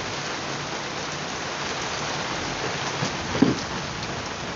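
Rain falling on a wet paved courtyard floor, a steady splashing hiss of drops on concrete, with one brief louder sound about three and a half seconds in.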